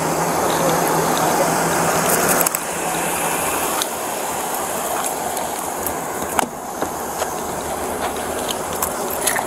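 Steady rushing street noise picked up on a police body-worn camera, with a low hum that stops about two and a half seconds in and a few scattered clicks and rustles.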